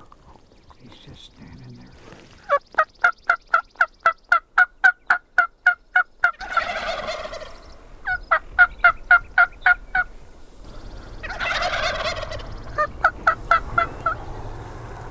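Runs of sharp, evenly spaced hen-turkey yelps, about three to four a second, each answered by a wild turkey tom gobbling; the yelps come three times and the gobble twice.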